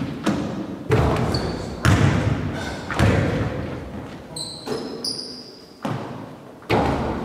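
Basketball bouncing on a hardwood gym floor: about six sharp bounces, each ringing out in the hall's echo. Brief sneaker squeaks come around the middle.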